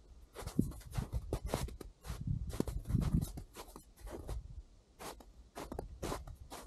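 Hiking boots crunching and scuffing in soft snow, footsteps at an irregular pace of a few to the second, with a low rumble strongest about three seconds in.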